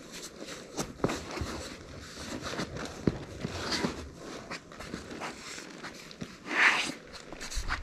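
Irregular scuffs and scrapes of shoes on sandstone and sand as a person clambers up rock, with a louder scrape about six and a half seconds in.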